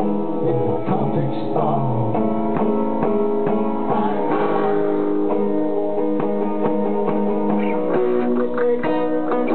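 Live guitar music: acoustic and electric guitars playing together, a steady run of picked and strummed notes.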